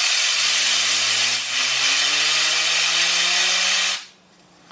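Compressed air hissing from an air compressor's blow gun onto a fidget spinner clamped in a vise, the spinner's hum rising steadily in pitch as it spins up. The air cuts off suddenly about four seconds in, and the spinner keeps humming faintly at a steady pitch.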